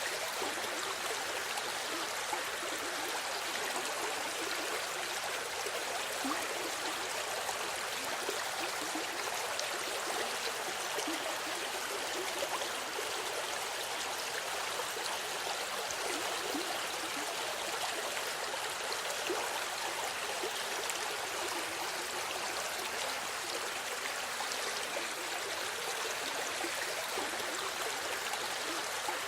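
Small river running steadily over stones, a continuous rushing and babbling of water with fine splashes and no pauses.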